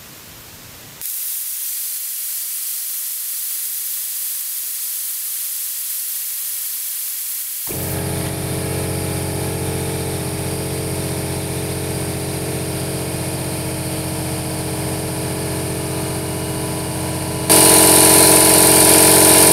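Compressed air hissing out of the compressor tank as it is bled down. About eight seconds in, the 230-volt electric air compressor kicks on at its cut-in pressure and runs with a steady hum. Near the end a much louder hiss breaks out as the tank reaches cut-off pressure.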